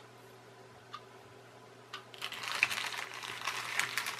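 Small plastic kit parts clicking and a clear plastic parts bag crinkling as they are handled: one small click about a second in, then a dense run of clicks and rustling from about two seconds in.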